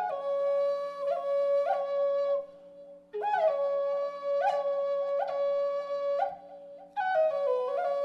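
Intro music: a solo flute plays a slow melody over a steady low drone. Its three phrases begin at the start, about three seconds in and about seven seconds in, each opening with a short run of falling notes.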